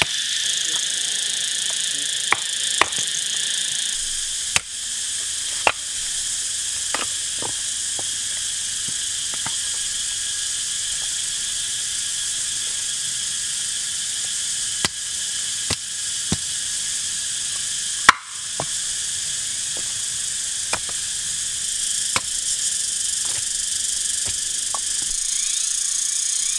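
Steady high-pitched chorus of forest insects, with scattered sharp knocks of a knife splitting a stick into kindling on a wooden log, the loudest about 18 seconds in.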